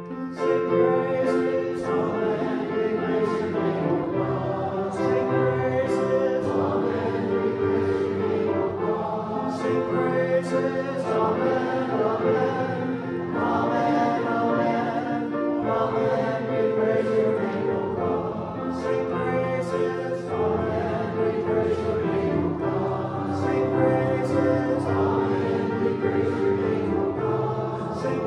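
Church congregation singing a hymn together with piano accompaniment.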